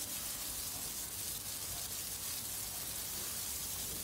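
Skewered prawns frying in hot mustard oil in a flat pan: a steady, even sizzle.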